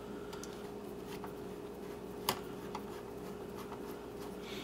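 Faint clicks and scrapes of a small screwdriver turning the spring-loaded screws of a laptop CPU heatsink, with one sharper click about two seconds in, over a steady hum.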